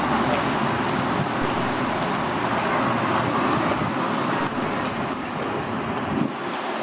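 Road traffic on a multi-lane road: a steady wash of tyre and engine noise, its low rumble dropping away about six seconds in.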